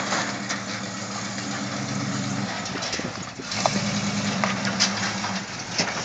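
Old pickup truck's engine running as it crawls over a dirt mound. The engine note fades for about a second just past the middle, then comes back louder, with scattered clicks and knocks over it.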